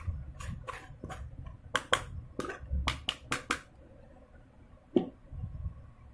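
A spoon scraping and tapping against a mesh strainer as jamun pulp is pressed through it: a quick run of sharp scrapes and clicks, then one louder knock about five seconds in.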